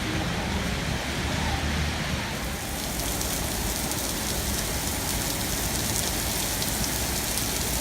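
Heavy rain pouring down, a steady dense hiss of drops that turns sharper and brighter about two and a half seconds in.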